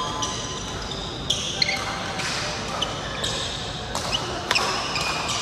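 Badminton rackets striking shuttlecocks, a series of sharp cracks at irregular intervals, mixed with short high squeaks of sports shoes on the court floor, echoing in a large hall.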